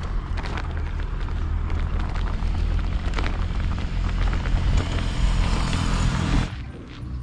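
Loud low rumbling noise with scattered clicks, cutting off suddenly about six and a half seconds in.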